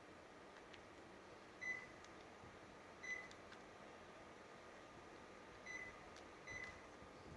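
Panasonic mini-split air conditioner's indoor unit beeping four separate times, each a short, high single beep, the unit's acknowledgement of button presses from the remote control.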